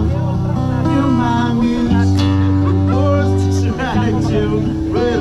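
Background music: a song with guitar and a singing voice over a steady bass line.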